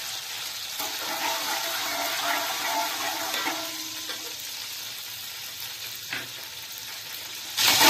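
Hot cooking oil sizzling with a steady hiss in a metal degchi as sugar is poured in and stirred with a slotted metal skimmer, the start of browning sugar in oil. The hiss is a little stronger about two seconds in, then eases.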